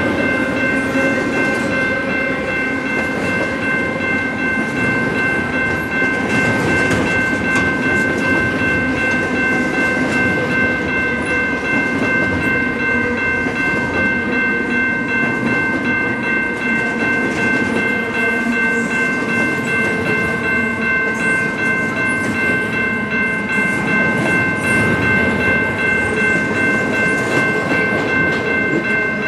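Double-stack intermodal freight cars rolling past close by: a loud, steady rumble and clatter of steel wheels on rail, with several steady high-pitched tones ringing over it.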